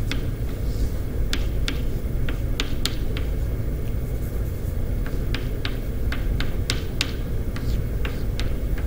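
Chalk tapping and scraping on a blackboard as an equation is written: an irregular string of short, sharp clicks over a steady low rumble of room noise.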